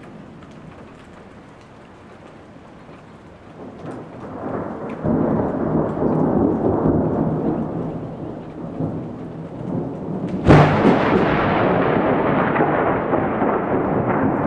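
Thunder: a low rumble builds about four seconds in and rolls on loudly. About ten seconds in, a sudden sharp crack of a close strike is followed by a long rumble. Scattered raindrops tick throughout.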